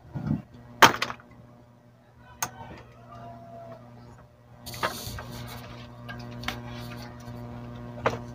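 Clicks and knocks of a CRT TV's chassis and main circuit board being handled and lifted out, about six in all, the loudest about a second in. A steady low hum runs underneath and grows louder about five seconds in.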